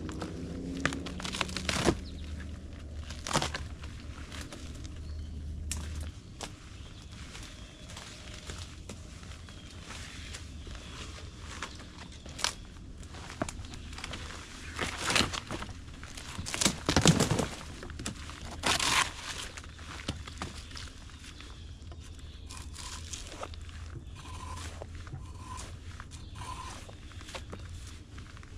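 Footsteps crunching through dry brush and fallen branches, with scattered snaps and crackles of breaking twigs and a few louder cracks about halfway through.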